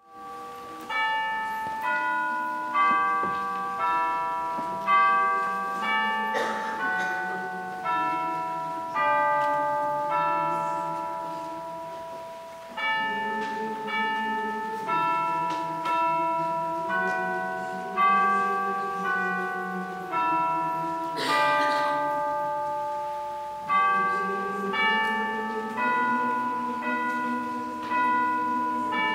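Bells playing a slow melody, a new struck note about every second, each ringing on and fading, over lower held tones. A brief noise cuts in twice.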